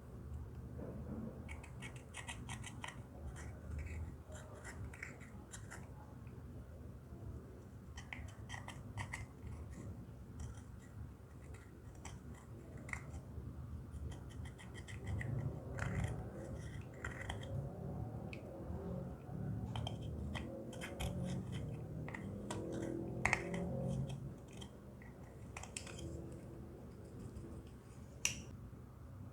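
Slime being squished and worked by hand, with runs of small sticky clicks and pops of trapped air over a low, wet squelching that grows heavier in the second half.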